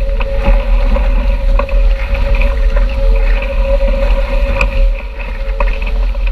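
Wind buffeting the microphone and water rushing past a sailing catamaran's hulls at speed, over a steady high hum with a few sharp ticks.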